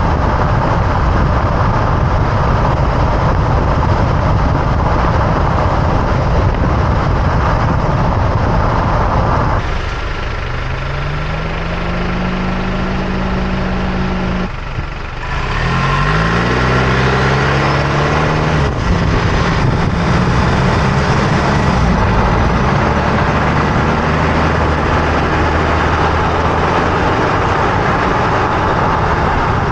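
Loud road noise from under the front end of a 2024 Toyota Tacoma pickup on the move, a rushing racket of tyres, wind and running gear. About ten seconds in it eases and the turbocharged engine's pitch falls as the truck slows, then climbs again as it accelerates, before the rushing noise returns.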